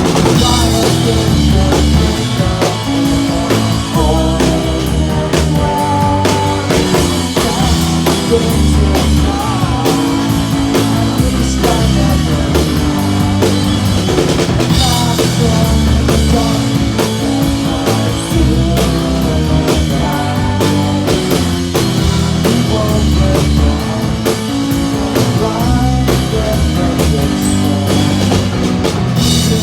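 A live rock band playing a loud, continuous instrumental passage: a full drum kit with kick drum and cymbals hit steadily, over sustained bass and chordal instruments.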